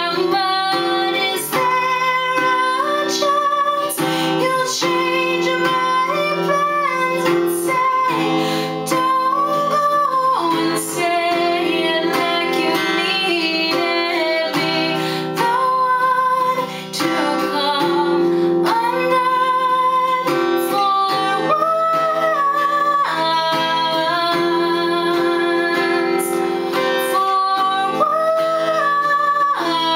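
A woman singing, holding long notes, to her own strummed acoustic guitar.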